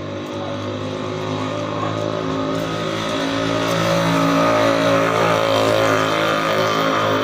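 A motor vehicle engine running steadily nearby with a low, even hum, getting louder over the first few seconds and then holding.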